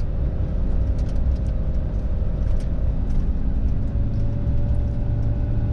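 Fiat Ducato-based campervan driving along, heard from inside the cab: a steady engine and road rumble with small rattling clicks.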